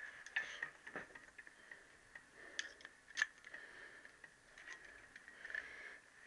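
Light, scattered clicks and taps of a hand tool and metal parts being handled against a Triumph T120R crankshaft, the sharpest about three seconds in, over a faint steady high hum.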